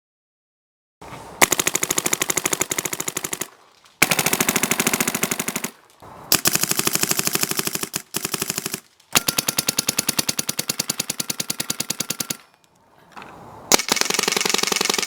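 Paintball marker firing fast strings of shots, six bursts of rapid fire with short pauses between them.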